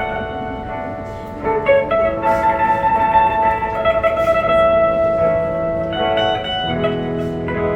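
Electric guitar played through an amplifier: an instrumental piece of held, ringing chords that change about two seconds in and again near the end.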